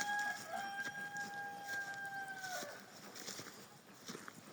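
A rooster crowing: one long drawn-out call at a steady pitch, about three seconds, dropping at the end.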